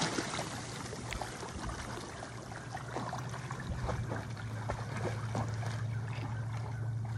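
A retriever swimming away through still floodwater: soft sloshing and lapping of its wake with many small splashes and drips. A steady low hum runs underneath.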